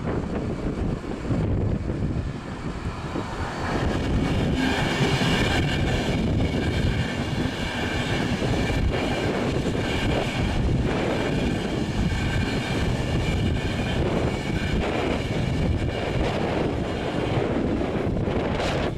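Train passing over a level crossing: wheels running on the rails with a steady rumble and a high whine for most of its passage, over wind noise on the microphone.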